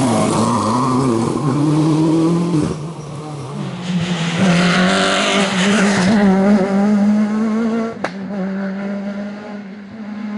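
Rally car engines at full throttle on a tarmac special stage, revving up through the gears in steps as the cars approach and pass close by. The sound changes abruptly about eight seconds in.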